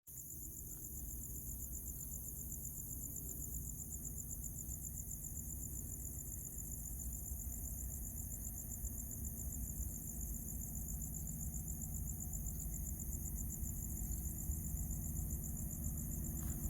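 Insects chirring in a fast, even pulse, with the low rumble of an approaching diesel locomotive slowly growing louder underneath.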